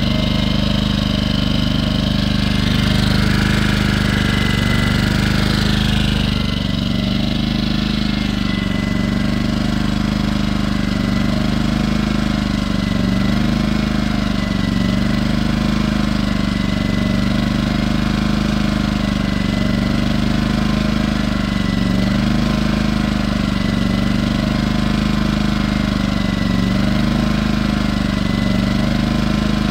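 Firman W01785 inverter generator's small engine running steadily at a low, even speed, its pitch dipping slightly now and then.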